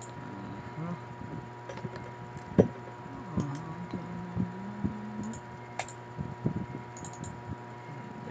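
Computer mouse clicks and small knocks on a desk, the loudest about two and a half seconds in, over a steady electrical hum. A low wavering hum runs through the first five seconds.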